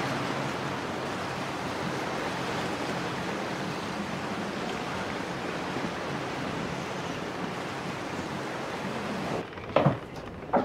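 Steady rush of wind and water on a motorboat under way. Near the end the rush stops and a cabin door's handle and latch click and knock a couple of times.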